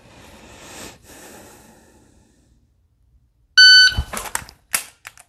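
A long breath, then a shot timer's start beep, a short loud electronic tone, a little over halfway through. A heavy thud follows as the pistol is drawn, then sharp single clicks of dry-fire trigger presses.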